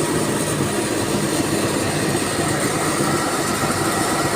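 Tractor-driven hazelnut vacuum harvester running steadily, a constant mechanical drone with a faint high whine.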